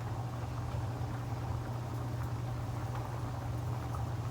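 Stovetop cooking: a steady low hum with the fine crackle of a pan of Alfredo sauce simmering on low heat and a pot of pasta water boiling.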